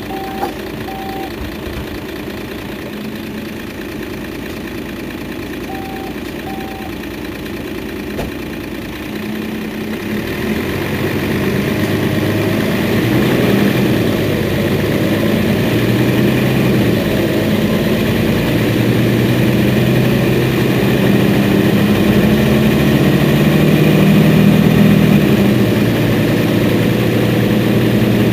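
Mercedes-Benz Citaro Facelift city bus standing with its diesel engine idling. The engine sound grows louder and deeper from about ten seconds in. Two pairs of short electronic beeps come near the start and again about six seconds in.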